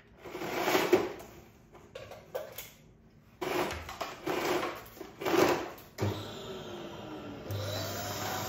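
Bagless canister vacuum cleaner: a few short surges of suction noise with quiet gaps between them, then running steadily from about six seconds in, with a low hum joining shortly after.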